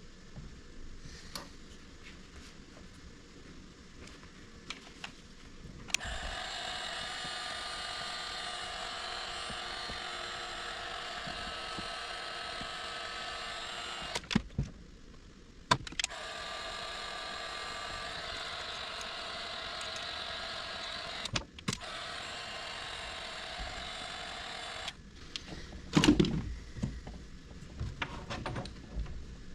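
A small electric motor runs with a steady whir. It starts with a click about six seconds in, cuts out briefly twice, and stops a few seconds before a loud knock and clatter of handling near the end.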